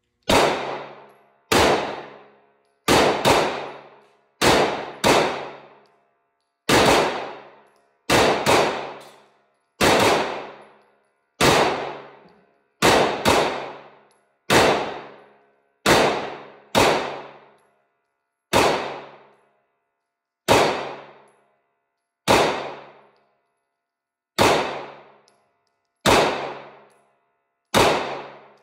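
Rex Zero 1 9mm pistol firing slow, deliberate single shots, about twenty in all at one- to two-second intervals, a few in quick pairs. Each shot is a sharp crack with a ringing tail that dies away over about a second.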